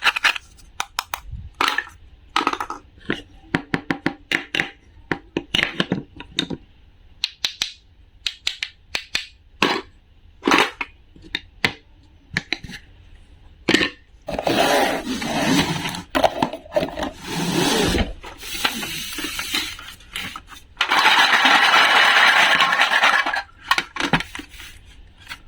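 Small hard objects clicking and clacking in quick, irregular taps, followed by several stretches of scraping, crackling noise, the longest of them about three-quarters of the way through.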